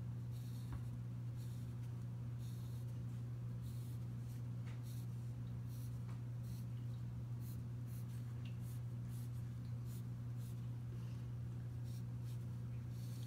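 Pencil lead scratching on drawing paper in short, irregular strokes as lines are drawn, over a steady low hum.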